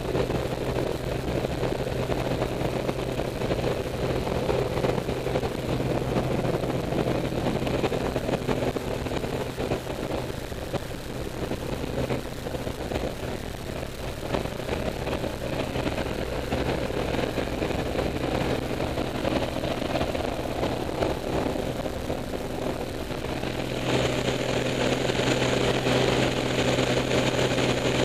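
Steady drone of a single-engine light aircraft's engine and propeller, heard from inside the cabin. Near the end the cabin door opens and a loud rush of wind joins the engine noise.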